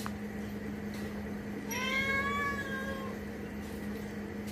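A cat meows once, a single long meow about two seconds in, rising in pitch at the start, over a steady low hum.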